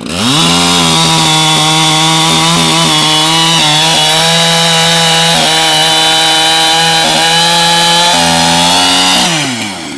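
Echo CS-7310P two-stroke chainsaw revving up to full throttle and cutting through a log at high revs, the pitch wavering slightly as the chain bites, then dropping back toward idle near the end as the cut finishes.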